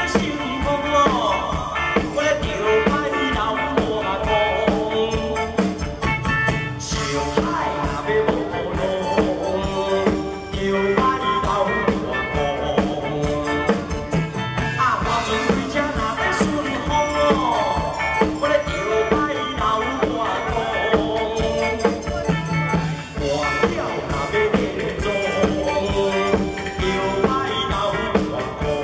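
A live band with drums and electric guitar playing an upbeat song while a man sings into a handheld microphone, amplified through a PA.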